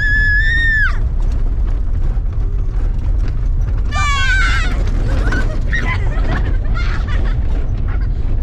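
Boys shrieking in high-pitched screams while riding in the back of a moving pickup truck: one long shriek at the start and another about four seconds in, with more shouting after it, over a steady low rumble from the moving truck.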